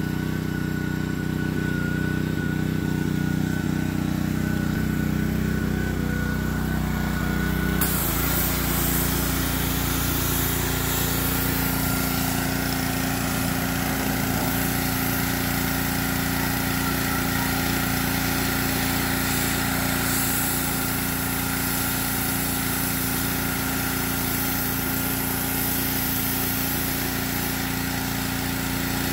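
Small gasoline engine of a pressure washer running steadily. About eight seconds in its note shifts slightly and the hiss of spraying water comes in.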